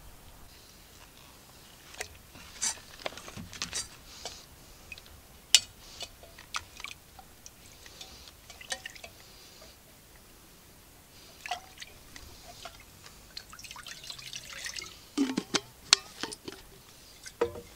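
Water sloshing and dripping in a metal mess tin as it is scrubbed and washed out, with a spoon clinking against the sides in sharp, irregular taps.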